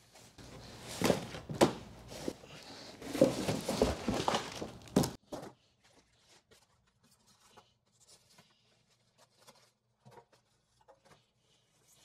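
Polystyrene foam packing inserts, plastic wrapping and cardboard box being handled as a canister vacuum is unpacked: rubbing, rustling and knocks, ending in a sharp knock about five seconds in. After that only faint handling clicks.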